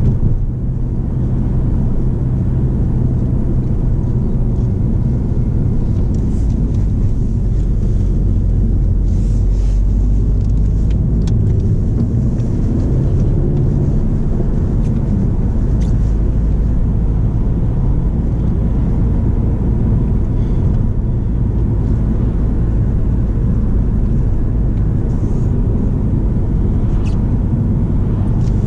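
Cabin noise of a 2013 Volkswagen Passat 2.0 TDI four-cylinder turbodiesel at a steady cruise: an even low rumble of engine and tyres on the road.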